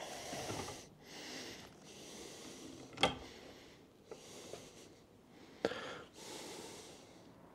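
A person breathing in and out close to the microphone, a puff about every second, with a few sharp plastic clicks and knocks as the cyclone's plastic dust container is handled, the loudest about three seconds in.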